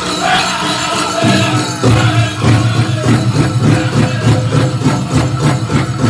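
Powwow drum group singing a chant-like song over a steady drumbeat of about three beats a second, the drumming growing stronger about a second in.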